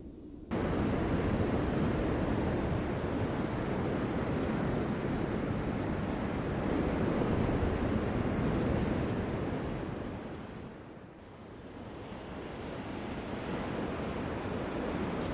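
Sea waves breaking and washing on the shore in a continuous surge that starts abruptly about half a second in, swells and ebbs, and eases briefly around eleven seconds before building again.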